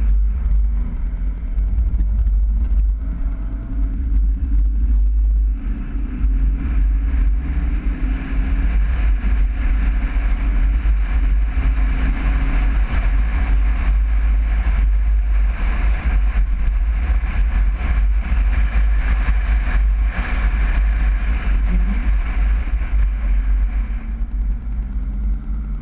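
1961 VW Bus's air-cooled flat-four engine pulling under way. Its pitch climbs, drops about five and a half seconds in as it changes gear, climbs again, then settles into a steady run, all over a heavy low rumble of road and wind noise.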